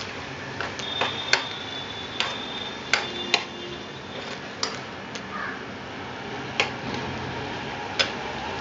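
Steel spoon stirring moong dal and onions in a kadai, knocking and scraping against the pan in irregular sharp clicks, roughly once or twice a second.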